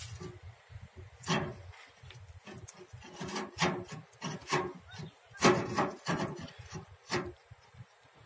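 Matchstick struck again and again against the side of a matchbox: about eight short scrapes at uneven intervals, some in quick pairs.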